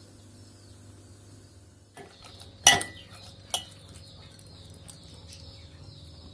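Metal kitchen utensils clinking against a pot or dish: one loud clank about two and a half seconds in, a second about a second later and a faint one near the end, with a faint steady hiss after the second clank.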